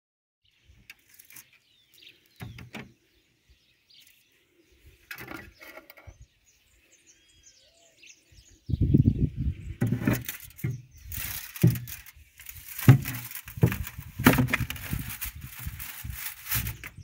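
Hands handling a homemade solar oven and its crinkled aluminium-foil lining: loud, irregular rustling and knocking from about nine seconds in. A faint bird call comes about three seconds in.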